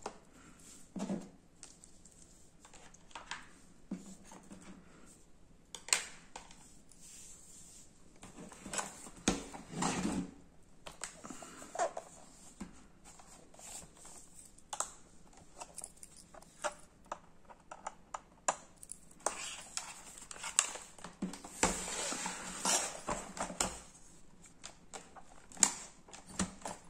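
Hands handling plastic laptop casings and a 2.5-inch laptop hard drive on a wooden table: scattered clicks, taps and knocks, with a busier run of clatter about three-quarters of the way through.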